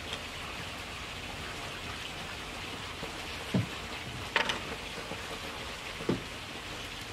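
Steady hiss-like background noise, with a soft knock about three and a half seconds in, a brief sharper click about a second later, and another soft knock near six seconds.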